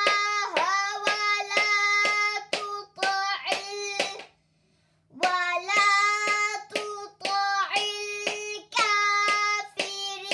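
A high voice chants Arabic Quranic phrases from an Iqra reading primer, drawing out each syllable, while a pointer stick taps the page on each one, about two taps a second. The reading stops for about a second near the middle, then goes on.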